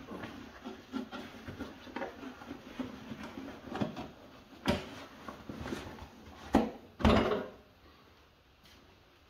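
Canvas bag's elasticated sleeve being pulled and worked onto the leaf vacuum's plastic discharge chute: fabric rustling and rubbing, with a few sharp knocks and snaps, the two loudest close together about three-quarters of the way through.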